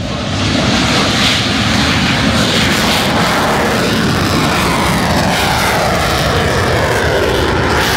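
Lockheed U-2 spyplane's turbofan jet at high power as it goes around from a low pass over the runway and climbs away overhead. Loud jet noise builds over the first half second, and from about three seconds in a whine glides steadily down in pitch as the aircraft passes and pulls away.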